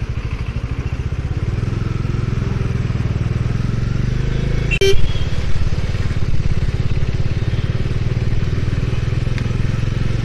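Bajaj Dominar's single-cylinder engine running at low revs while the motorcycle rides slowly, a steady low pulsing. A brief sharp sound stands out about five seconds in.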